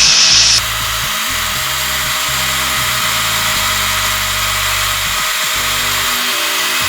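A power tool running steadily on wood, its noise shifting and dropping a little about half a second in, under background music.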